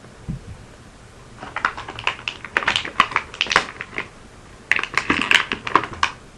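Small hard-plastic Beyblade parts and their packaging being handled, a quick run of clicks and crinkles in two bursts as the parts are taken out, with a soft thump shortly before.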